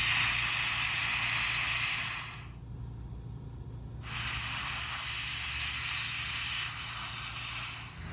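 Air hose from a gas-station air pump hissing as it inflates an electric scooter tire. The air comes in two bursts, the second longer, with a pause of about a second and a half between them.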